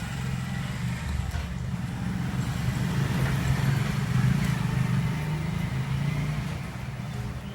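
A steady, low rumble like a motor vehicle's engine, uneven but unbroken throughout, over a faint hiss.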